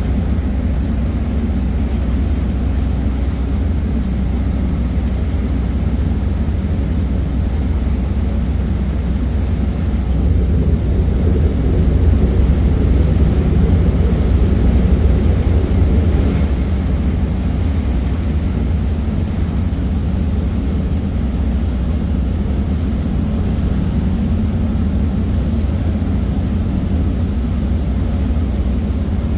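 Passenger ferry under way: a steady low engine rumble under the rush of wind and churning water on the open deck, a little louder for several seconds in the middle.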